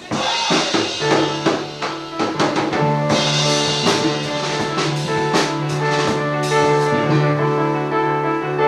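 Rock band music: a drum kit with repeated cymbal and drum hits, joined about a second in by sustained bass and keyboard notes.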